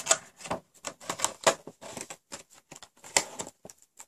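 Packaging and accessories being handled on a table: irregular clicks, taps and rustles, several a second, thinning out near the end.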